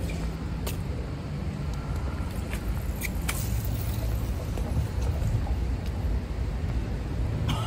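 Steady low rumble of city street traffic, with a few faint clicks scattered through it.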